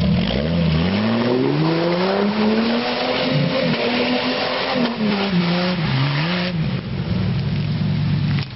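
Jeep engine revving hard under load as it ploughs through a deep mud and water hole, the revs climbing steeply at first, then wavering up and down, with water and mud splashing. Near the end the revs drop and settle into a steadier lower note.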